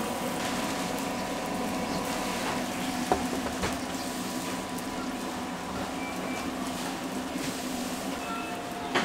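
Steady mechanical hum and hiss with a few constant tones, with two light knocks about half a second apart roughly three seconds in.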